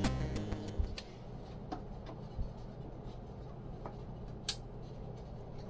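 A few short, sharp clicks and taps, spaced irregularly over a faint low hum in a small room, with the end of the music fading out at the start.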